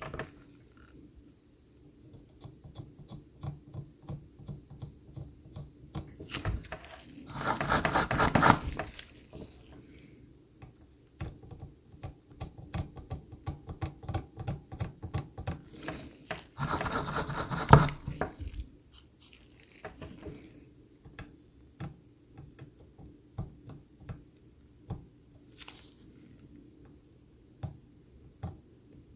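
Small clicks and taps of soldering tools working on a circuit board, with two short spells of fast rubbing strokes, about seven and about sixteen seconds in.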